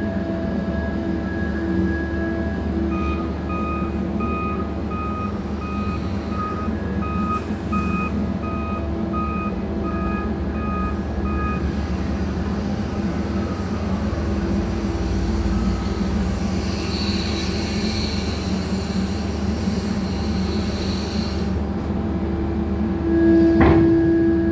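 Mantsinen 95 hydraulic material handler working, its power unit humming steadily. From about three seconds in, a warning alarm beeps about twice a second for some eight seconds. Later a higher hiss joins for a few seconds, and near the end there is a sharp knock.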